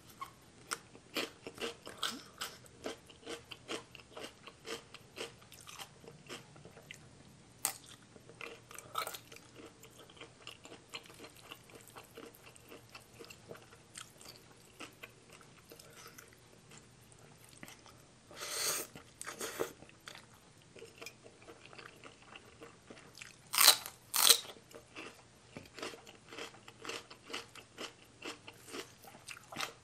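A person chewing and crunching crisp raw vegetables close to the microphone: a steady run of small crunchy chews, with a few much louder crunching bites about two-thirds of the way through.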